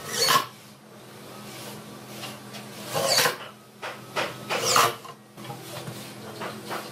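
Cordless Makita driver running in three short bursts as it drives screws through a metal drawer slide rail into the wooden drawer side. Near the end, softer rubbing and rolling sounds of the drawer moving on its slides.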